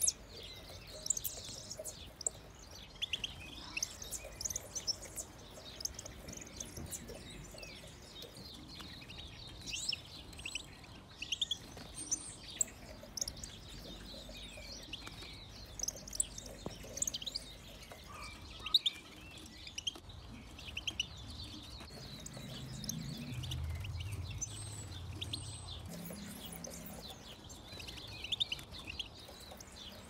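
European goldfinches chirping and twittering, many short high calls throughout. A low rumble rises from about 22 to 26 seconds in.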